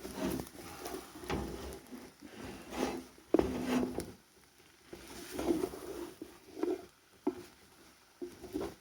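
Irregular knocks, clinks and scrapes of kitchenware being handled while food is prepared, with the loudest knock about three and a half seconds in.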